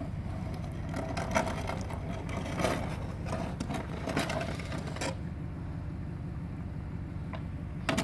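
An engine runs steadily with a low, even hum. Several short noises sound over it in the first five seconds.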